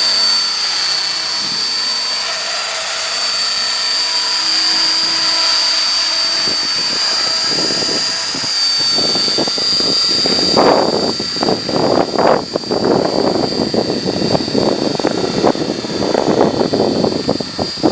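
Esky Belt-CP electric RC collective-pitch helicopter flying, its motor and rotor giving a steady high whine. From about halfway through, gusts of wind buffet the microphone in irregular rumbling blasts that grow louder near the end.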